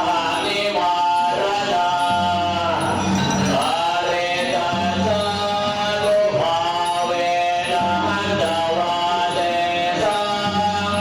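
Background music with a male voice singing long, held, chant-like notes.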